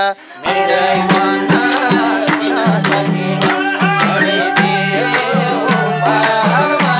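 Instrumental break of a Nepali dohori song, starting about half a second in: harmonium chords held over a steady hand-drum beat, with bright high percussion strikes coming almost twice a second.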